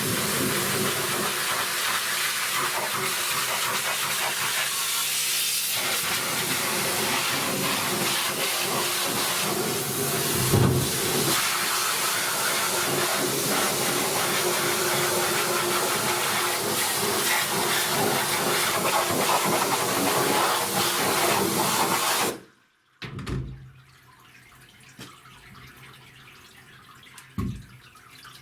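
A loud, steady hissing jet that cuts off suddenly about 22 seconds in, followed by a few light knocks.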